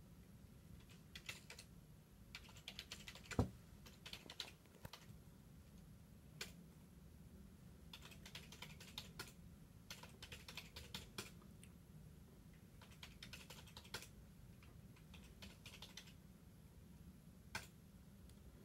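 Faint bursts of typing on a computer keyboard, rapid clicks in short runs with pauses between, and one louder knock about three and a half seconds in. A low steady hum lies underneath.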